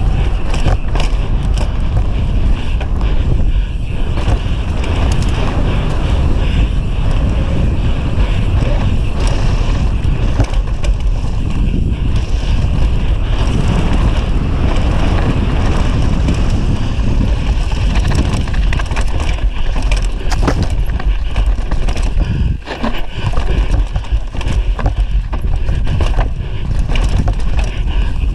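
Wind buffeting the microphone of a GoPro Session Hero 5 carried down a downhill mountain-bike course at speed, mixed with tyres running over dirt and rocks and the bike rattling and knocking over bumps.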